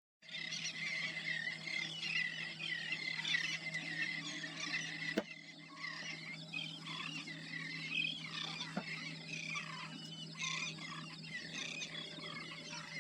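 Many birds calling at once: a dense chatter of overlapping short, squeaky, wavering calls, over a steady low hum, with a sharp click about five seconds in.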